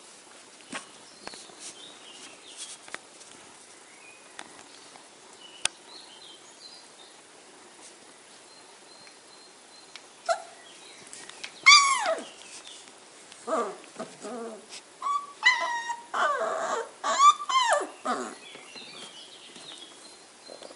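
Flat-coated retriever puppies whimpering and squealing: after about ten seconds of faint rustling and small clicks, a run of short high calls follows, their pitch arching up and down, with the loudest squeal about twelve seconds in.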